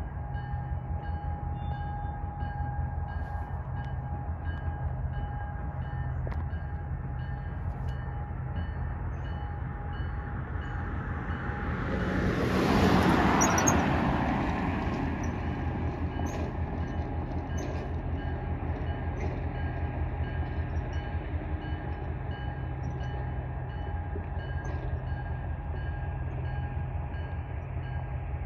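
Diesel train locomotive running with a steady low engine throb, and a broad rush of noise that swells to its loudest about halfway through and fades over a few seconds.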